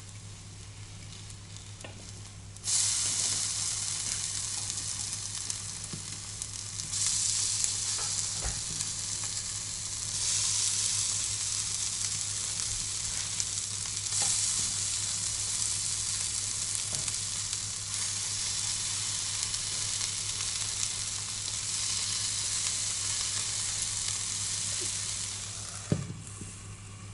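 Oat fritters frying in a dry pancake pan with no oil: a steady hiss-like sizzle that gets suddenly louder about three seconds in and dies down near the end as the glass lid goes back on. A few light clicks of a fork and knife on the pan come while the fritters are turned.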